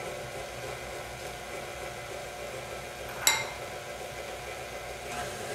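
Stand mixer running steadily at low speed as eggs are added to the butter and sugar, with one sharp, ringing clink a little over three seconds in.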